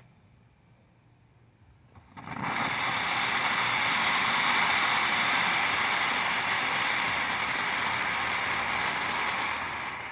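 Bright Star Fire Roulette rotating fountain firework catching about two seconds in and spraying with a loud, steady hiss that drops off near the end.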